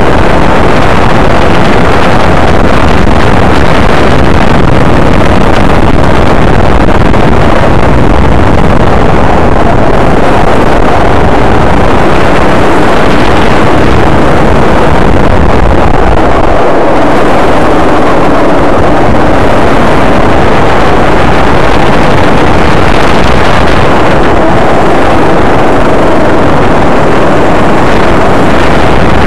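Go-kart engine running hard through a lap, heard from an onboard camera, loud and distorted, with the engine note rising and falling through the bends. Wind rushes over the microphone throughout.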